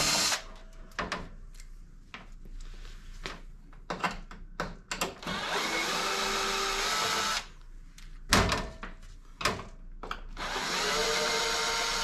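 Electric drill-driver backing out the screws of a range hood door hinge. The motor runs in short spurts of about two seconds: one ending just after the start, one in the middle and one near the end. Clicks and knocks of handling fall between them.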